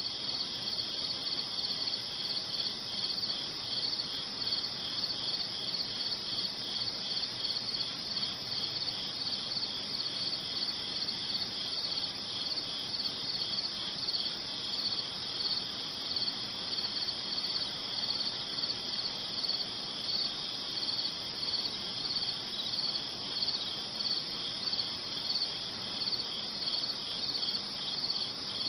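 Crickets chirping as a sound effect: a steady, high-pitched pulsing trill that keeps going without a break.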